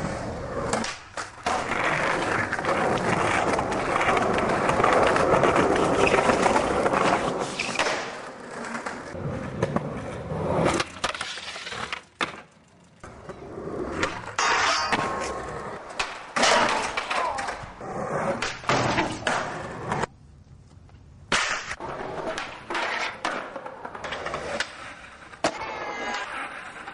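Raw skateboarding sounds over several clips: skateboard wheels rolling on concrete, boards popping and clacking, and hard landings and slams on stairs and pavement, with a board grinding a steel handrail. Sharp impacts come one after another, with short quiet breaks between clips.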